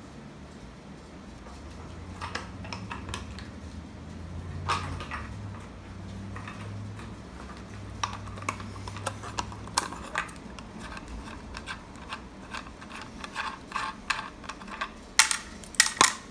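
Small metal clicks and clinks of lock parts being handled on a gumball machine, scattered through, with a quick run of louder clicks near the end.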